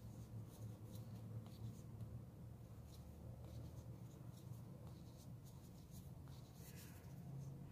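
Faint, irregular scratching and rubbing of a crochet hook and yarn as single crochet stitches are worked and the yarn is pulled through, over a low steady hum.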